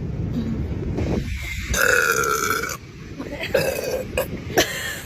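A young woman burping, with one long, drawn-out burp about two seconds in.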